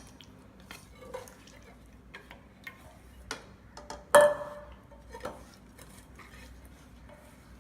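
Kitchen dishes and utensils being handled: scattered light clicks and taps, with one louder clatter and a brief metallic ring about four seconds in.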